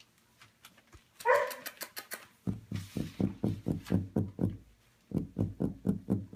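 Four-week-old Goldendoodle puppies vocalising as they play-wrestle: a short yelp about a second in, then two runs of rapid low grunting barks, about five a second.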